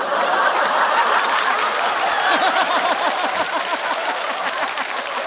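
Studio audience laughing loudly, with scattered clapping, in response to a punchline.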